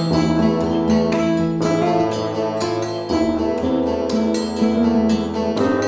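Instrumental background music with plucked-string notes.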